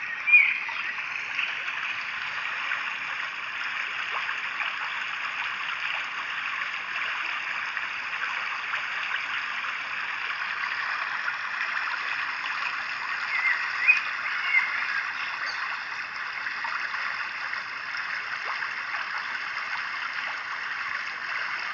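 Steady running water, like a stream flowing, with a few brief high chirps about half a second in and again near the middle.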